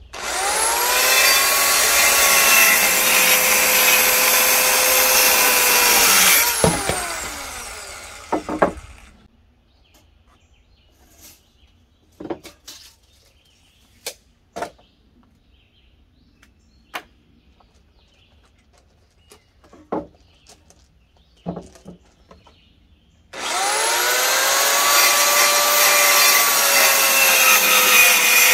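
Corded handheld circular saw spinning up and cutting through 2x4 lumber for about six seconds, then switched off and winding down with falling pitch. After a pause with a few scattered knocks, the saw starts again and cuts through the end.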